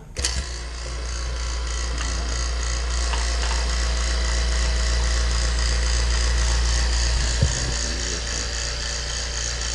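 Refrigeration vacuum pump switching on and running steadily, pulling a vacuum on a homemade oil extractor to draw oil out of a scroll compressor. It has a low hum with a fine, fast flutter on top, and one short click near the end.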